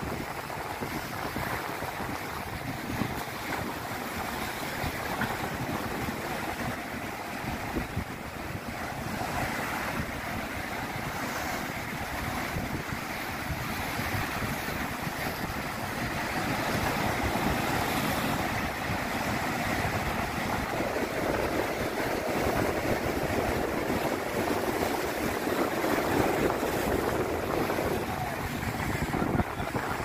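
Rough sea surf crashing and washing over a breakwater of concrete blocks, a continuous rush that grows louder about halfway through, with wind buffeting the microphone.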